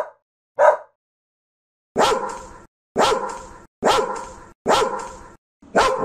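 A cocker spaniel gives two short barks at the start. About two seconds in, a Belgian Malinois begins barking, five loud barks about a second apart, each trailing off.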